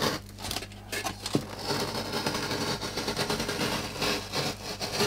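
A sharp knife drawn through foam board in one long continuous cut, starting about a second and a half in and lasting about three seconds, after a few light knocks.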